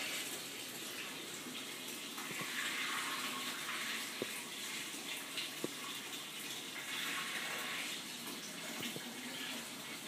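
Water running and splashing steadily in a turtle tank, the sound of the filter's outflow, swelling and easing slightly. A few faint clicks come about halfway through.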